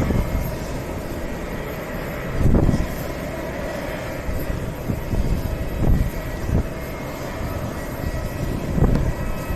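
Airplane engines running with a steady whine, overlaid by low gusts of wind rumbling on the microphone a few times.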